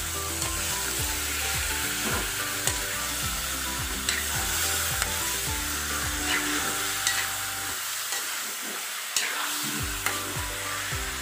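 Chicken pieces sizzling in hot oil in a metal wok, stirred and turned with a metal spatula that scrapes and knocks against the pan now and then.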